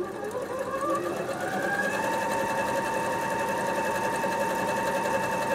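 Bernette B37 computerized sewing machine starting up and speeding up over about two seconds, then stitching steadily at an even speed, sewing a dense decorative satin-stitch pattern.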